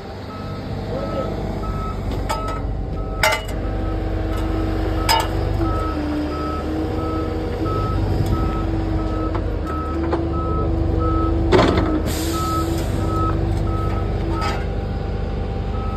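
A diesel mini excavator running at the sewer-repair dig, with a reversing alarm beeping in an even, steady rhythm over it. A steady hum joins from about four seconds in until about twelve, and a few sharp knocks stand out, the loudest near the end.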